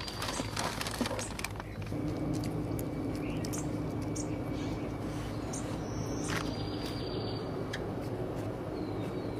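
Daikin VRF air-conditioning unit running with a steady hum; a higher tone joins it about two seconds in, after a few clicks and knocks near the start. Faint bird chirps over it.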